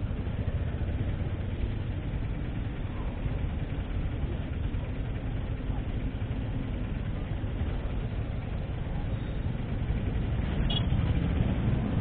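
Suzuki Hayabusa inline-four running steadily while riding, under a low rumble of wind on the microphone; it gets a little louder near the end.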